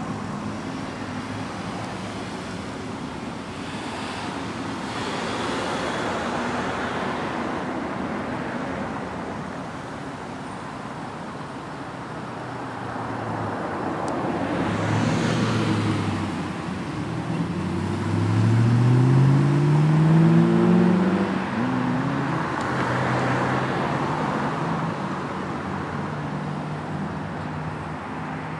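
Road traffic: cars passing with swelling tyre and engine noise, and about two-thirds of the way through a vehicle accelerating, its engine note rising in pitch, the loudest sound.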